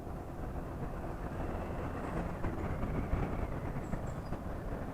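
Honda PCX scooter's single-cylinder engine and exhaust running while riding, with wind on the microphone; the sound grows a little louder about two seconds in.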